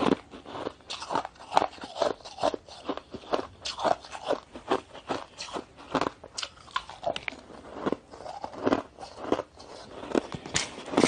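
Shaved ice being bitten and chewed, a steady series of irregular crisp crunches a few times a second.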